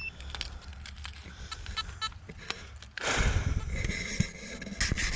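Footsteps and rustling of a metal detectorist walking over dry, stony ground, louder and rumbling from about three seconds in, with a short high beep from the metal detector at the start.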